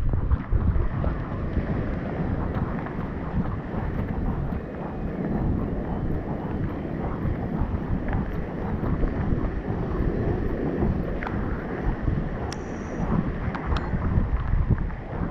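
Strong wind buffeting the microphone in a continuous, gusting rumble, with a few faint sharp ticks scattered through it.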